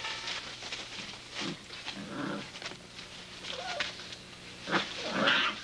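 Bouvier des Flandres puppies whimpering and yipping: scattered short, high cries, some bending in pitch, with the loudest cluster near the end.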